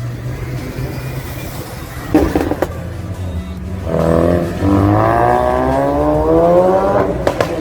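A car engine accelerating hard about halfway in, its pitch rising steadily for about three seconds before dropping off, over background music.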